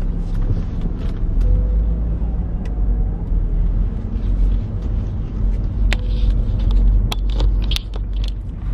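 Car running, heard from inside the cabin as a steady low rumble, with a few sharp clicks and knocks near the end.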